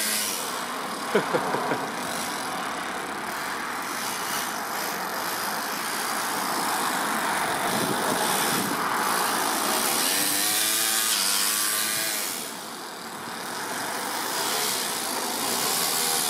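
Toyan FS-S100 four-stroke single-cylinder overhead-cam engine in an RC car running as the car drives, its revs rising and falling with the throttle. There is a quick run of sharp clacks about a second in, and the engine drops back briefly about three-quarters of the way through.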